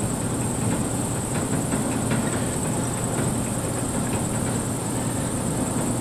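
Older 80%-efficiency gas furnace firing with its ribbon burners lit: a steady low rumble with a hum, and a faint steady high hiss over it.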